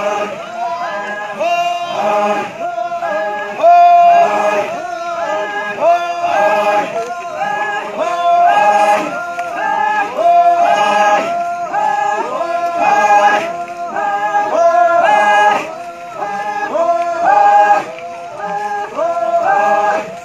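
A large group of men chanting in unison, a repeated sung phrase in a steady rhythm of about two notes a second, as they haul together.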